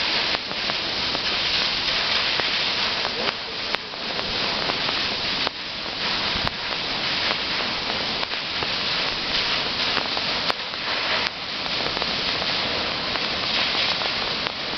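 Steady rushing roar of a high waterfall's falling water, with a few abrupt jumps in level.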